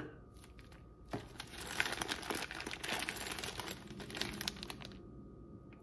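Thin clear plastic bag crinkling and rustling as a hand digs into it, starting about a second in, lasting about four seconds, then stopping.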